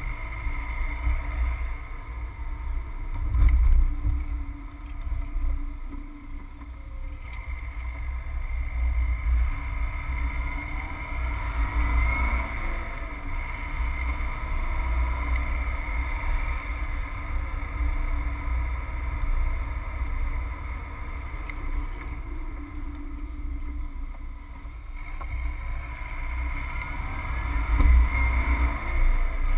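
Inside the cabin of a moving Subaru Forester: steady low rumble of the flat-four engine and tyres on the road. The engine note rises in pitch twice, about a third of the way in and again near the end, as the car speeds up.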